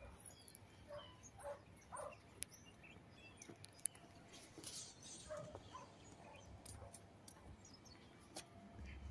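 Near silence: faint outdoor ambience with a few scattered faint chirps and a couple of sharp clicks.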